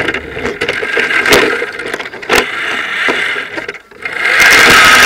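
Radio-controlled car picked up close by its onboard camera: chassis rattling and scraping with a couple of sharp knocks. About four seconds in, the motor and drivetrain whine comes up loud and steady as the car runs at speed.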